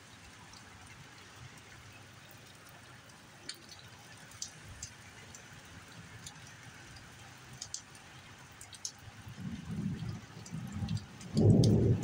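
Steady rain hissing down on a garden, with occasional sharp drips ticking. About nine and a half seconds in, a low rumble of thunder swells up and is loudest near the end.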